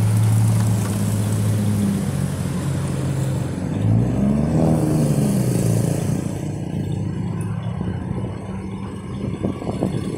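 Motorbike engine running steadily while riding in traffic, with a short rev up and back down about halfway through, over road noise.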